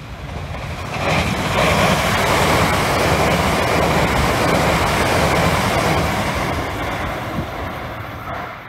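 Electric suburban passenger train passing close by on the rails: the rush of its wheels and cars swells about a second in, holds steady for several seconds, then fades away.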